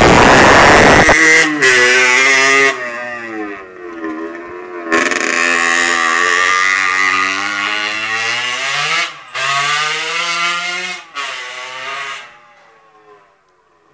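1993 Aprilia RS 50 Replica Reggiani's two-stroke Minarelli AM3 engine, bored to 75 cc with a Polini kit and running through a Leovinci exhaust, revved hard at first, then blipped up and down several times before dropping to a low idle near the end. It is running a little rich: the carburettor jet is too big and the air filter is not quite clean.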